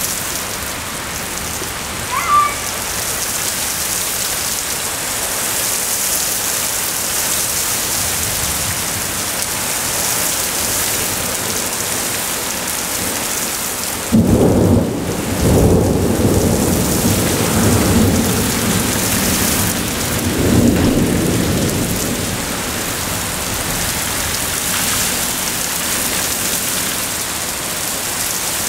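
Heavy rain pouring steadily. About halfway through a sudden loud clap of thunder breaks in and rolls on in rumbles for several seconds.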